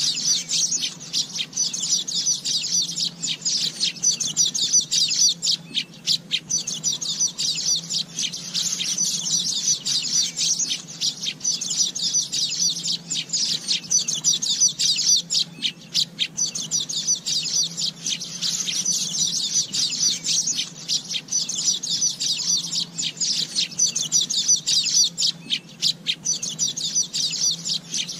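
Asian golden weaver (Ploceus hypoxanthus) song: a dense, unbroken stream of rapid high chattering and twittering notes.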